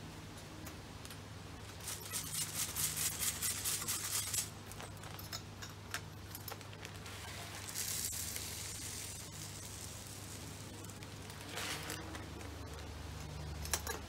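Birdseed poured into a plastic tube bird feeder, rattling in as a fast run of ticks for about two seconds, then rustling of the seed bag and a few light knocks as the feeder is handled.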